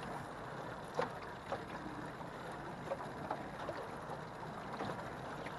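Choppy lake water lapping against the hull of a small aluminum jon boat as it bobs and drifts, with a few short slaps of water at irregular moments.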